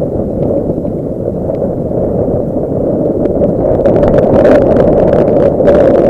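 Wind buffeting the microphone: a loud, steady low rumble that grows stronger about halfway through, with a few faint clicks on top.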